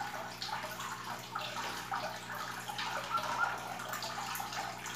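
Aquarium water trickling and bubbling in an irregular patter, over a steady low hum from the tank's running equipment.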